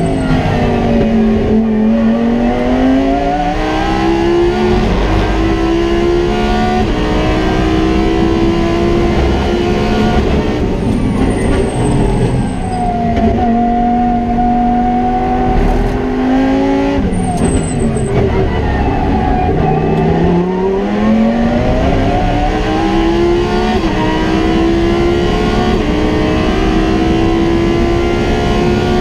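Lamborghini Huracán Super Trofeo race car's V10 heard from the cockpit at racing speed. The engine note drops twice as the car brakes and downshifts, and between the drops it climbs hard in steps through quick upshifts.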